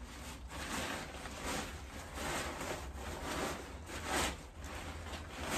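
Fabric of a folded inflatable paint booth and its carry bag rustling and swishing in a run of irregular strokes as it is pulled out of the bag and handled.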